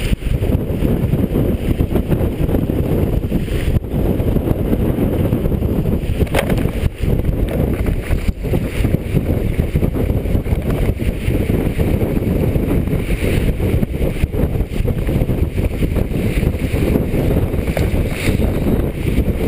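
Wind buffeting the microphone, with the bow wave of a heeled sailboat under sail rushing and splashing along the hull: a loud, steady, low rushing noise.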